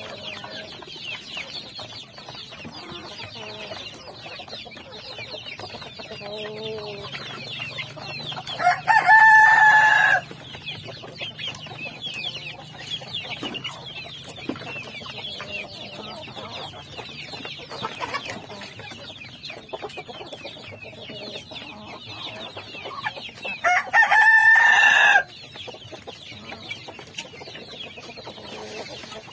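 A flock of young chicks peeping constantly, with a rooster crowing loudly twice: once about nine seconds in and again about fifteen seconds later.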